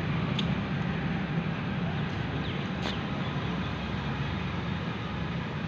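Steady outdoor background noise, a rushing hiss over a low rumble, with a couple of faint clicks.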